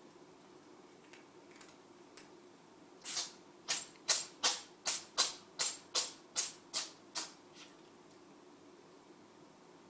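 Cat sneezing in a rapid fit of about a dozen short, sharp sneezes, two to three a second, starting about three seconds in. The sneezing comes from a piece of grass stuck in its nose.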